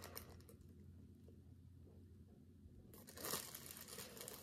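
A small clear plastic bag crinkling as it is handled, mostly quiet for the first three seconds, then crinkling more from about three seconds in.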